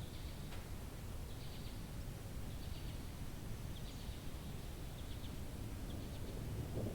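Quiet outdoor ambience ahead of a thunderstorm: a steady low rumble with faint, high chirps repeating about once a second. Near the end the low rumble begins to swell as thunder comes in.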